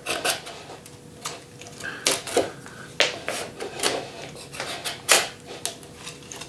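Carving knife shaving the bark off a green diamond willow stick: a series of short, irregular scraping strokes, the bark peeling away more than being cut.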